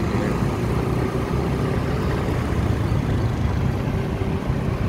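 Motorbike riding in city traffic: a steady engine drone mixed with constant wind rush, with a faint steady whine running through it.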